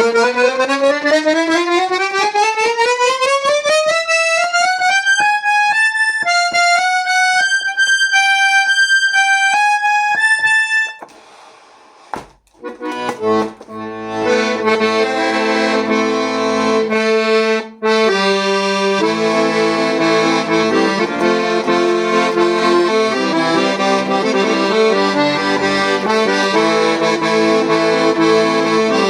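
Weltmeister 120-bass piano accordion played solo: a quick rising run of single notes, then a few held notes. After a pause of about two seconds comes steady chordal playing with low notes underneath.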